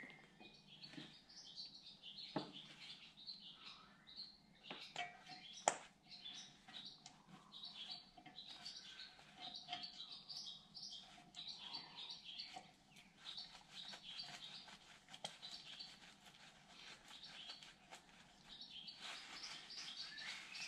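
Faint chirping and twittering of small birds, with a couple of sharp taps, the louder one about six seconds in.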